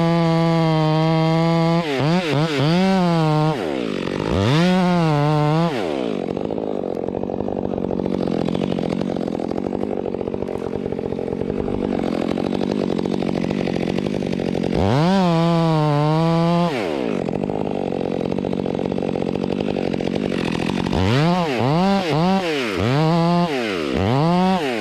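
Two-stroke chainsaw running at full throttle, dropping lower and steadier under load while cutting through a trunk, with quick throttle blips about two and four seconds in and several more near the end, as the tree is felled.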